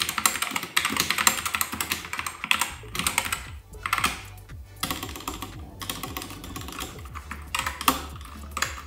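Fast typing on a Corsair K70 RGB TKL keyboard with Corsair OPX optical-mechanical switches: a dense stream of key clicks in quick runs, broken by brief pauses.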